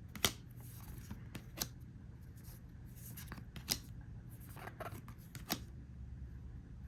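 Trading cards being handled and flipped through by hand: four crisp snaps spaced out over several seconds, with light rustling of card and wrapper between them.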